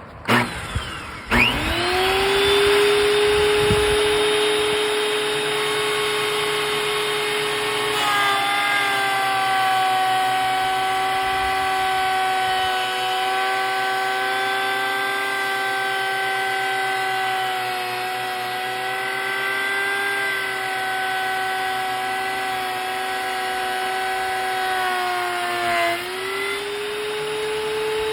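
Hercules 12-1/2-inch benchtop thickness planer switched on, its motor whining up to speed and running free. About eight seconds in the pitch drops as a board feeds through and is cut under load. Near the end the pitch rises again as the board clears the cutterhead.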